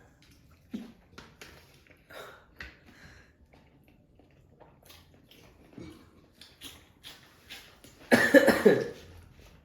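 A person eating rice and curry with small, scattered wet mouth and chewing sounds, then one short, loud burst from a person's voice about eight seconds in.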